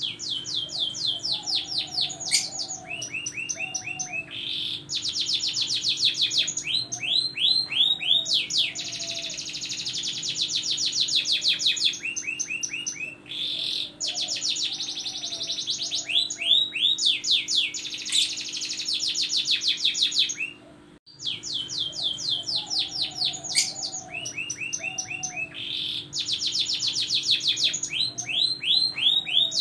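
Domestic canary singing a long, continuous song of rapid trills, fast rolls of repeated notes switching from one trill to the next, with a brief break about two-thirds of the way through.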